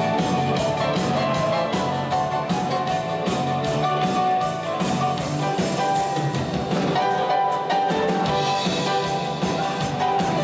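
Live dansband music with a steady drum-kit beat, electric guitar and a Nord Electro 5D keyboard playing.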